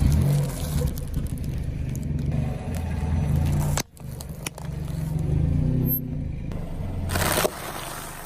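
A car engine running slowly with some crackling and scraping. The sound breaks off abruptly about four seconds in and again near the end.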